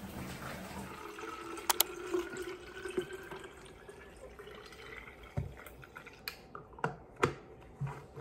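Water poured from a pitcher into a plastic water bottle, the filling note rising in pitch as the bottle fills. A pair of sharp clicks comes about two seconds in, and later there are several plastic clicks and knocks as the bottle's lid is handled and screwed on.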